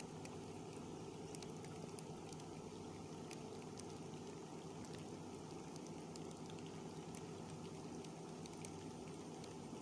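Heavy rain falling on open water: a steady, even hiss with scattered faint ticks of single drops.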